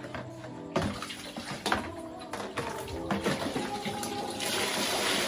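Water sloshing and a plastic dipper knocking in a bucket and plastic basin, then, about four and a half seconds in, water poured from the dipper into the basin, with soft background music under it.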